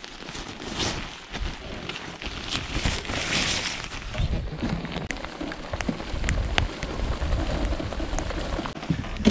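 Rain suit rustling and crinkling as it is pulled on, with scattered sharp ticks, over light rain pattering on the water and boat.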